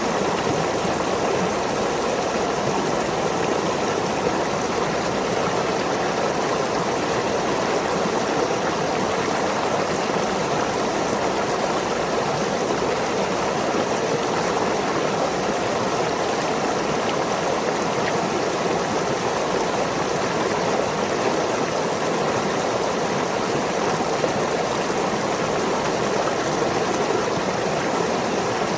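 Small waterfall in a stream: water falling and rushing steadily.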